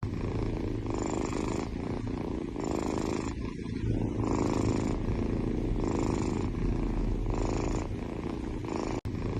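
Domestic cat purring steadily, swelling and easing in an even rhythm about every second and a half with its breathing.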